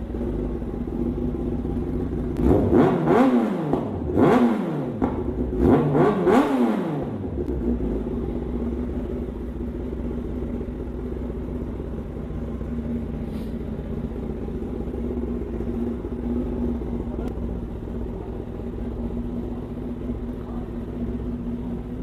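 Kawasaki ZX-10R's inline-four engine idling, blipped three times a few seconds in, each rev rising and falling quickly in pitch, then settling back to a steady idle.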